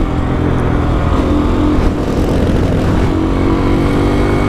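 2014 Honda CRF230 dirt bike's single-cylinder four-stroke engine held at full throttle while riding, its pitch staying nearly steady rather than climbing: the engine is bogging, and the rider says it runs badly.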